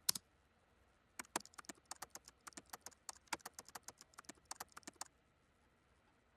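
A single sharp click, then quick irregular clicking, roughly five clicks a second, that starts about a second in and stops about five seconds in, over a faint hiss.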